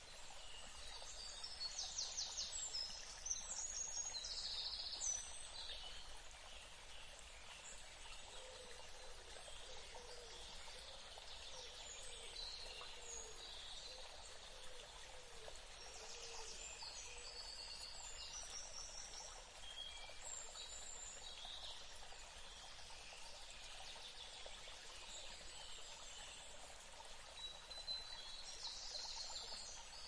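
Steady rush of stream water over rocks, with songbirds chirping and trilling above it, busiest in the first few seconds and again near the end.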